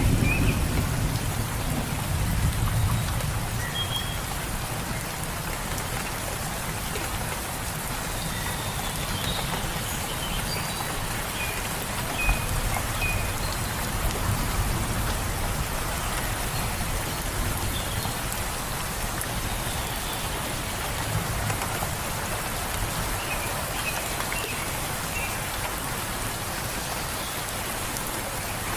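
Steady rain falling in a forest, with faint scattered bird chirps. A low rumble sits under the rain in the first few seconds.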